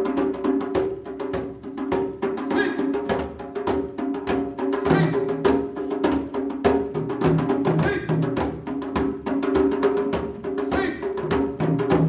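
Drum-led music: quick drum strokes over steady sustained notes, with a lower pulsing note joining about five seconds in.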